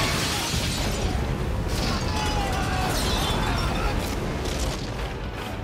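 Film sound effects of a building being blown apart: an explosion and smashing debris right at the start, then continued crashing and rumbling with several further bursts, and film score music underneath.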